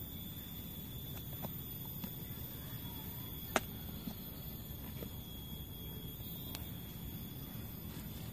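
Small twig campfire crackling, with scattered faint clicks and one sharp click about three and a half seconds in, over a steady low rustle and a thin steady high tone.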